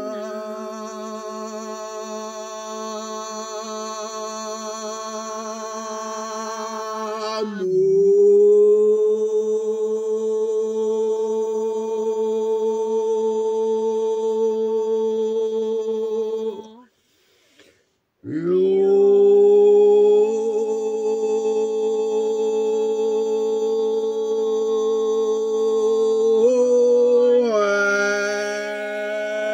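A voice intoning long, drawn-out chant notes with strong overtones, each held steady for several seconds. About seventeen seconds in there is a short break for breath, after which a new note slides up into place.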